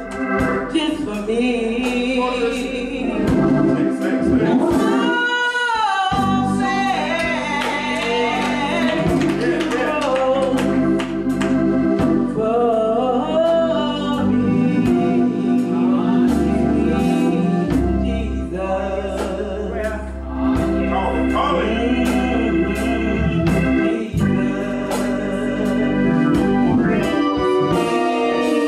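Gospel choir singing with organ accompaniment, with sustained chords and melismatic vocal lines over a steady beat.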